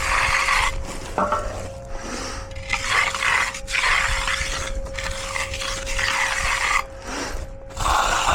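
Hand finishing tool scraping across wet concrete in repeated strokes, over a steady faint hum.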